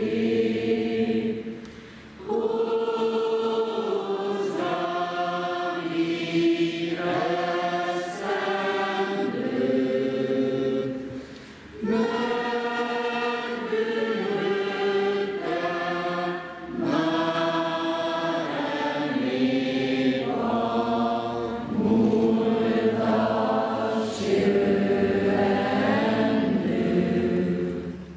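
A large group of adults and children singing together, with held notes in long phrases broken by short pauses for breath. The singing stops just before the end.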